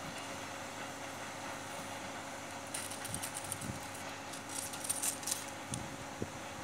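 Railway station ambience: a steady electrical hum, a few low wind thumps on the microphone, and a spell of faint metallic clinking and rattling from about three to five and a half seconds in.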